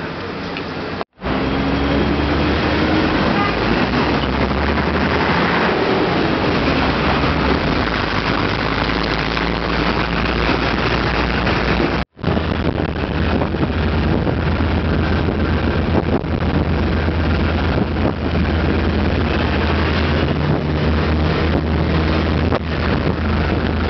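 City street traffic: bus and car engines running with road noise and a steady low rumble, broken by two sudden cuts. The later part is heard from the open top deck of a double-decker bus, with the engine's rumble under it.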